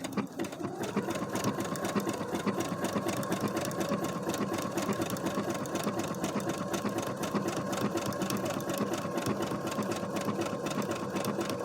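Brother SQ9285 sewing machine stitching a dense zigzag embroidery stitch at a steady speed: a fast, even chatter of needle strokes over a steady motor whine, starting up just after the beginning.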